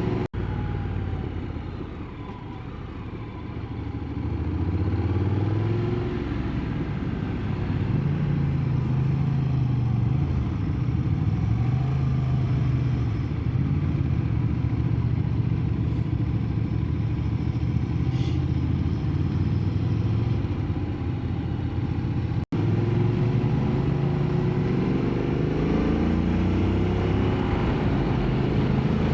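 Honda NC750 DCT motorcycle's parallel-twin engine running on a climbing road, its pitch repeatedly rising and falling as it pulls and the automatic gearbox shifts. The sound drops out for an instant about two-thirds of the way through.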